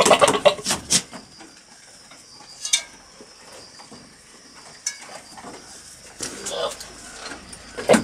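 Billy goat making weird, rough vocal noises at nanny goats: a loud burst of them in the first second, a sharp click a few seconds later, and a quieter pitched call about six seconds in.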